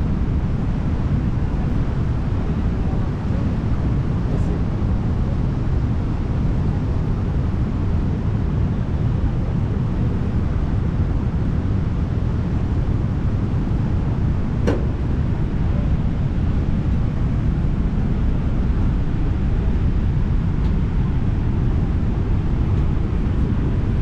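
The Garonne rushing past in high, fast, muddy water: a steady low rush, mixed with wind on the microphone. A single sharp click about fifteen seconds in.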